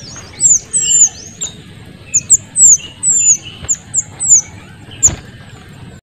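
Small minivets (kuniran) calling: a quick, uneven series of thin, very high notes, each sliding down in pitch, about a dozen in all, with softer lower chirps between them. A single dull bump sounds about five seconds in.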